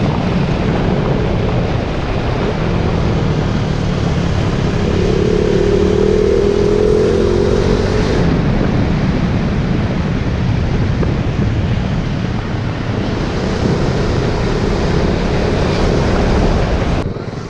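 KTM Duke 390's single-cylinder engine running under way through its stock exhaust, mixed with strong wind rush on the microphone. The loudness dips briefly just before the end.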